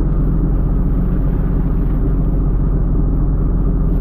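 Pole-and-line tuna fishing boat's engine running steadily under way, a loud, even rumble.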